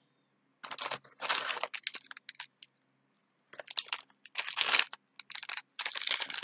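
Packaging crinkling and rustling in irregular bursts as a plastic snack packet is handled and pulled out of a parcel. Two spells of crinkling with a pause of about a second between them.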